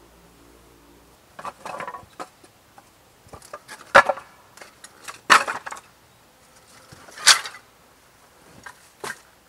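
Dry split kindling sticks and firewood pieces being set down on a pile on the ground, clattering and knocking against each other. There are several sharp wooden clacks a second or two apart, the loudest about four, five and seven seconds in.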